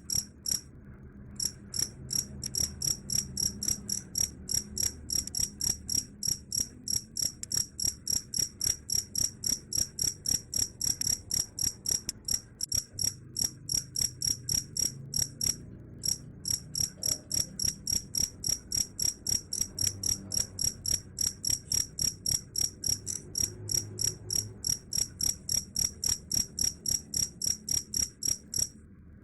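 Cricket chirping: a steady run of short, high-pitched chirps, about four a second, that breaks off briefly a couple of times.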